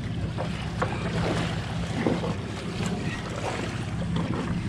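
Suzuki 250 outboard engine idling with a steady hum, under wind and sea noise, with a few small knocks.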